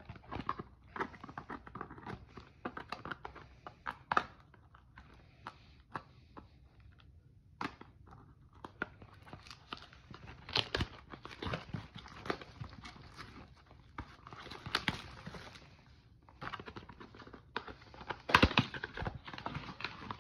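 Hands handling trading cards and opening a Panini Absolute football blaster box: scattered clicks and taps of cards early on, then crinkling and tearing of the box's wrapping and cardboard flap, loudest near the end.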